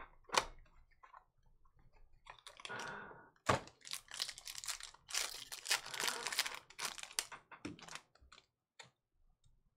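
Hands opening a trading-card box and tearing open the foil pack inside it: crinkling and ripping of the wrapper with a couple of sharp snaps, the crinkling densest in the middle and dying away near the end.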